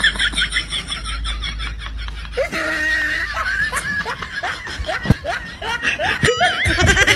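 A person laughing, a quick run of short laughs at first and then longer, wavering laughs.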